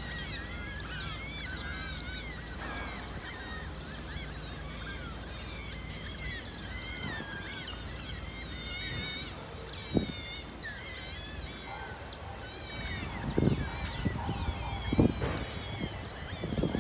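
A family of smooth-coated otters chirping: many high-pitched calls overlapping continuously. A few sudden thumps come near the middle and toward the end.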